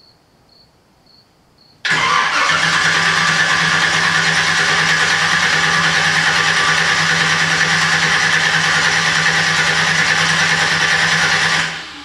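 A loud motor starts abruptly about two seconds in, runs steadily at a constant speed, then dies away near the end.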